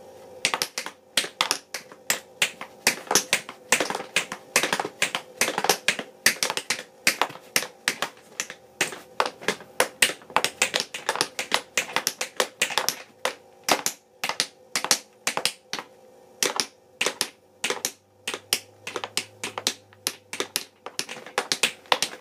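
Tap shoes' metal taps striking a hard floor in tap-dance steps: quick, uneven runs of sharp clicks, several a second, broken by short pauses.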